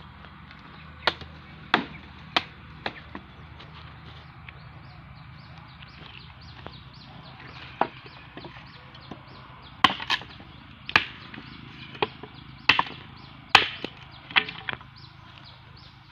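A heavy chopper blade chopping into wood, struck in sharp single chops: about four in quick succession about a second in, then a run of about nine more from about eight seconds in.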